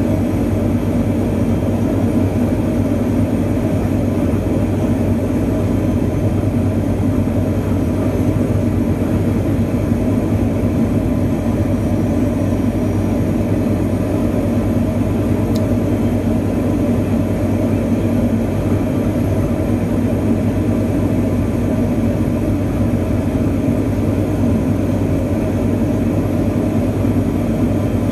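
Turboprop airliner's engine and propeller heard from inside the cabin: a loud, steady drone with a constant low hum.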